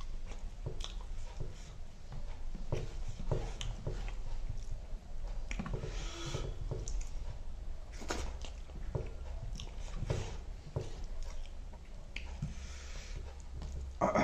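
Close-up chewing and biting of spicy chicken wings and rice eaten by hand: irregular wet mouth smacks and small clicks.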